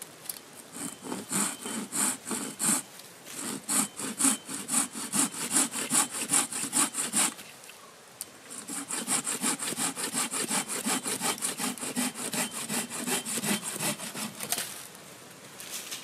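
Hand saw cutting through a dry branch with quick back-and-forth strokes, about two to three a second, in two runs with a short pause about halfway through.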